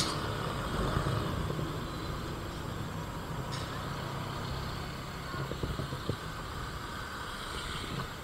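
A small motorcycle engine runs at low road speed under road and wind noise, growing a little quieter in the second half. There is a faint click about three and a half seconds in.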